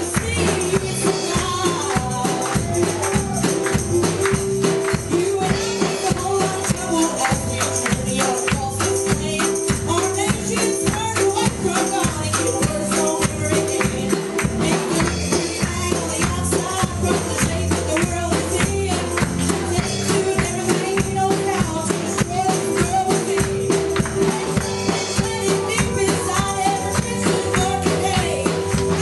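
Live gospel music from a church band, with drums and a tambourine keeping a steady beat and singing over it.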